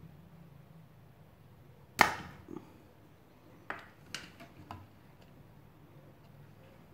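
Spring-loaded desoldering pump fires with one sharp snap about two seconds in, sucking molten solder off a capacitor lead on the circuit board. A few lighter clicks follow over the next few seconds as the tools are handled.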